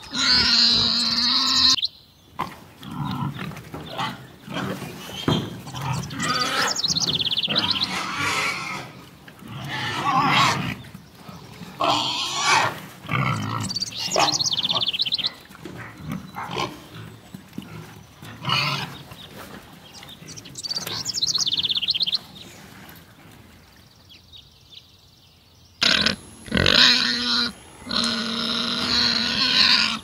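Pigs grunting and squealing: a long run of separate calls, some low grunts and some high-pitched squeals, with a quieter gap a little before the end.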